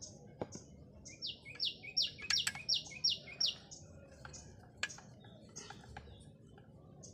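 A small bird chirping: a quick run of about seven high, falling notes a little after a second in, with scattered single chirps around it. A few light clicks are mixed in.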